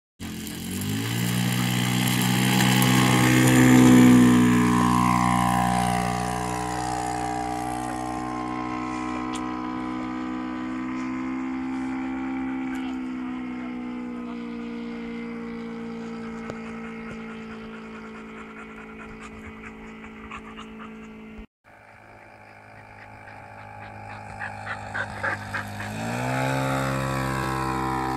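Engine and propeller of a 220 cm radio-controlled Cessna 152 model running at high power through takeoff and flight, its pitch falling as the plane passes and climbing again as it comes back toward the listener. A dog barks several times in the background near the end.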